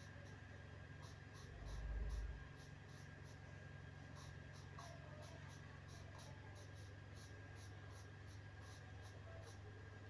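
Faint graphite pencil scratching on drawing paper in short repeated shading strokes, about two or three a second. A steady low hum runs underneath, and a brief low thump comes about two seconds in.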